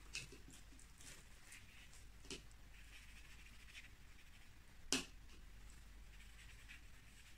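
Faint sounds of watercolour brushwork: a brush dabbing in a plastic mixing palette and stroking on paper, with a few light taps, the sharpest about five seconds in.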